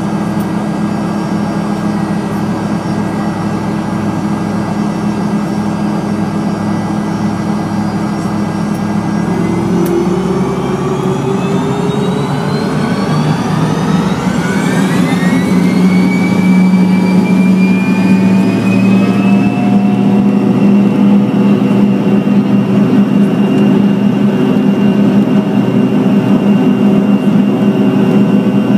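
Fokker 100's rear-mounted Rolls-Royce Tay turbofan, heard from inside the cabin. It runs steadily at first, then spools up about ten seconds in, its whine rising in pitch over several seconds. It settles at a higher, slightly louder steady note.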